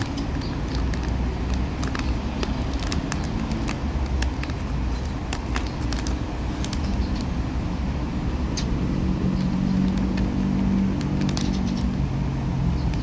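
Plastic ice cream sandwich wrapper crinkling and tearing open by hand, a scatter of sharp crackles, over a steady low rumble of road traffic.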